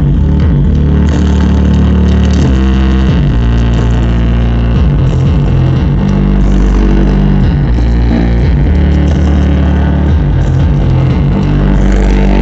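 A song played loudly through a pair of JBL A352HI 6.5-inch two-way coaxial car speakers mounted in a box, with strong bass notes that change every second or two.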